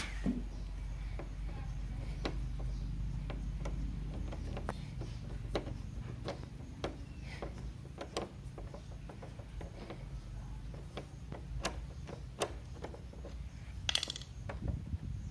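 A screwdriver slowly backing a screw out of a motorcycle's plastic side fairing: scattered small clicks and ticks, about one or two a second, over a low steady hum. A short bird call comes near the end.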